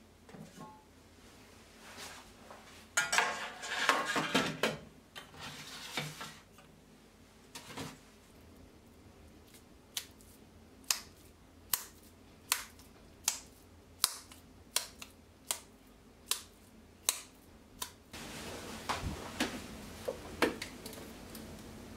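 Hamburg-steak meat mixture being tossed from palm to palm to knock the air out of the patty: a regular run of sharp slaps, about one every three-quarters of a second, for some eight seconds. Before it comes a ragged spell of the meat being handled against a stainless steel bowl, and near the end a steady low hiss from oil heating in a frying pan.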